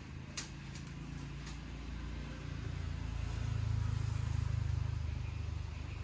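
Cardboard tray of an Apple Magic Keyboard box sliding out of its sleeve: a low rubbing rumble that swells in the middle and eases off, with a few light clicks near the start.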